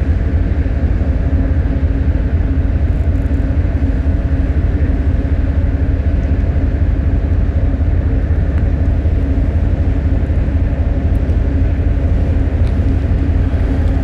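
A cruise ship under way: a steady low rumble with a constant droning hum, unchanging throughout.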